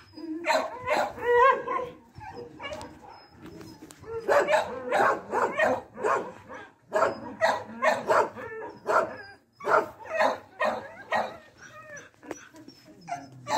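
Dog barking and whining in repeated short calls, coming in several clusters.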